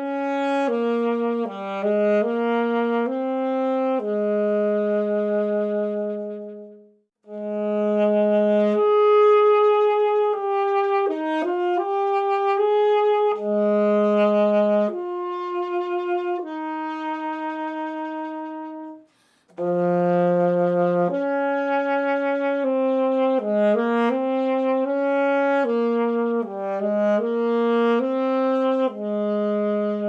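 Alto saxophone playing an unaccompanied melody in phrases, with some long held notes. The playing breaks off briefly about seven seconds in and again near twenty seconds.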